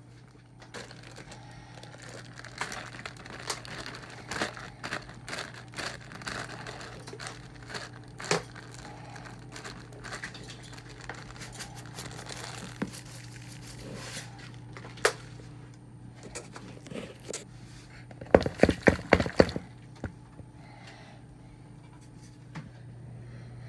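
Packaging crinkling and rustling as it is handled, with scattered clicks, then a quick run of about six knocks near the end. A steady low hum runs underneath.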